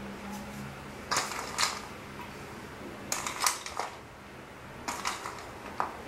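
Chunks of chocolate clicking and clattering against a ceramic bowl as a hand picks them out, in three short bursts about two seconds apart.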